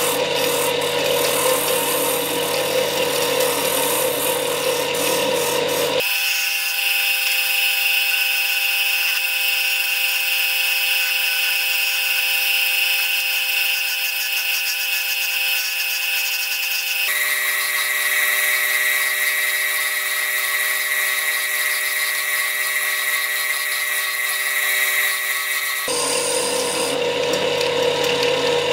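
Wood lathe, the tags name a JET JWL-1443, spinning a silverberry goblet stem while a hand-held chisel cuts fine shavings from it: a steady machine whine with a rubbing cut. The low hum drops out abruptly about a fifth of the way in, the whine's pitch shifts in the middle, and the fuller sound returns near the end.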